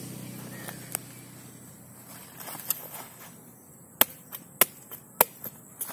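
Knife blade chopping into the hard husk of a hand-held cacao pod: a few sharp strikes, the four loudest coming about half a second apart in the second half.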